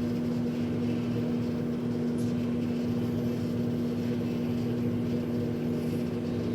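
Microwave oven running while heating a bowl of oatmeal: a steady hum with one strong low tone.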